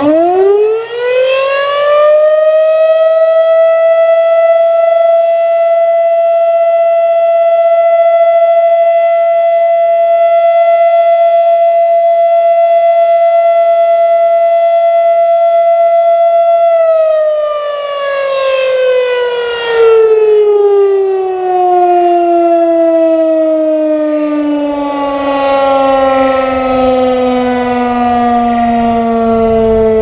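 Federal Signal Model 5B electromechanical fire siren sounding its test: it winds up to a steady single-tone wail in the first few seconds, holds it for about fourteen seconds, then winds down in a long, slowly falling tone.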